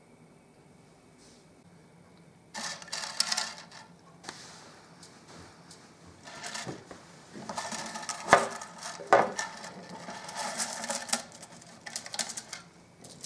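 Small objects being handled on a table: irregular clattering and clicking that starts about two and a half seconds in, with a couple of sharper knocks past the middle.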